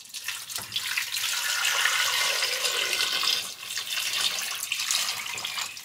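Water poured from a glass measuring cup into a pot over potatoes and eggs: a steady splashing pour that tapers off near the end.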